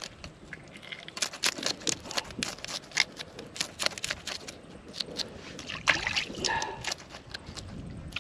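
A knife scraping scales off a bluegill: a rapid series of short, sharp scrapes, several a second, with water lapping faintly underneath.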